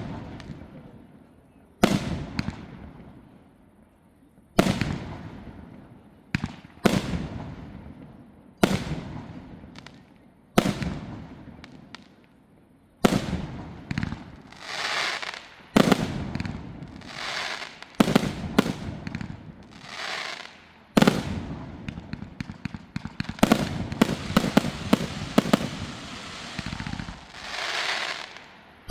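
Aerial firework shells bursting, each sharp bang trailed by an echo that fades. At first one comes about every two seconds; about halfway through they come faster, mixed with stretches of crackling, and a rapid volley of bangs follows near the end.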